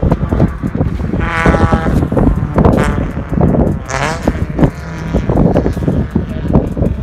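Touring car engines running hard past the trackside. The engine note rises as the cars accelerate, most clearly about a second and a half in and again around four seconds in.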